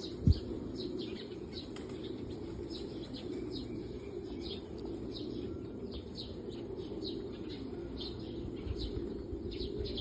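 Birds chirping in short, high, falling notes, about two a second, over a steady low murmur, with one sharp thump just after the start.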